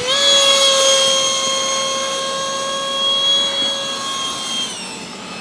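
Electric ducted-fan RC jet with a 70mm fan driven by a brushless motor, whining loudly at high throttle as it flies past. The pitch finishes climbing right at the start, holds steady, then dips slightly near the end.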